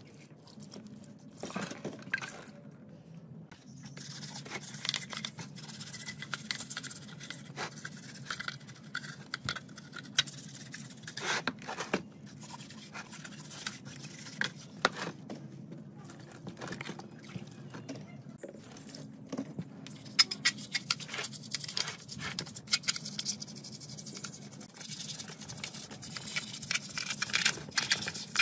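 A brush scrubbing oily cast-metal engine covers in a tray of liquid, with splashing and dripping and frequent short scrapes and clicks, over a low steady hum. Near the start, liquid is poured onto a cover.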